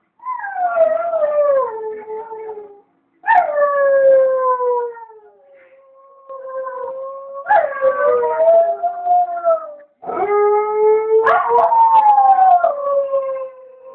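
Two dogs howling together: a string of long howls that slide down in pitch, the two voices overlapping and crossing each other from about halfway through.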